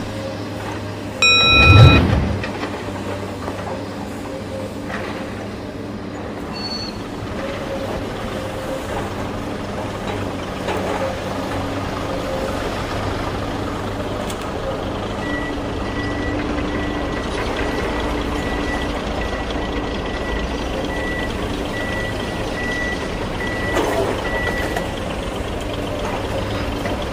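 Excavator engine and reversing-alarm sounds: a low, steady engine hum with a slow run of short, evenly spaced high beeps through the middle of the stretch. A loud burst with a brief horn-like tone comes about a second and a half in.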